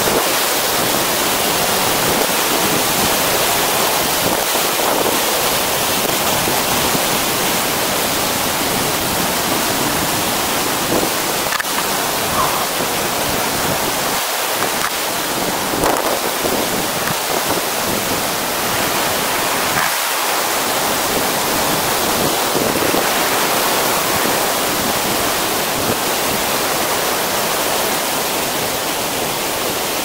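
The Grey Mare's Tail waterfall pouring into its plunge pool, heard close to its foot: a loud, steady, even rush of falling water.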